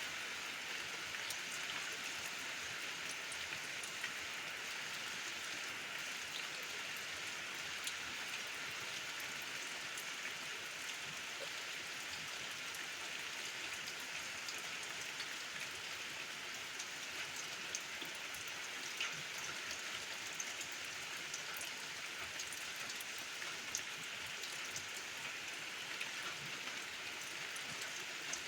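Steady rain falling, an even hiss dotted with the sharp ticks of single drops striking.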